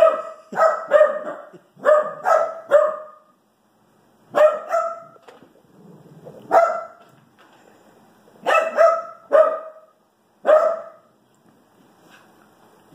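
Small dog barking during play: sharp, high barks in quick runs of two or three, about a dozen in all, dying away near the end.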